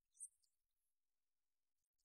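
Near silence: room tone, with one faint, brief high-pitched tick about a quarter second in.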